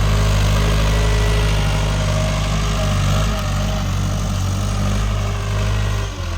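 Tractor engine running steadily under load while ploughing a field, with a brief dip and change in pitch near the end.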